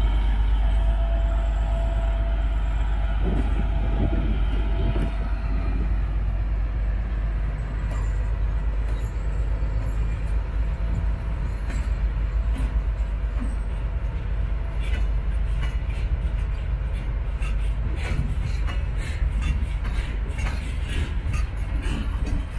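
A twin-section 2M62 diesel freight locomotive with two-stroke diesel engines rumbling as it pulls a freight train past, then the wagons rolling by with clicking and clacking from the wheels over the rail joints in the second half.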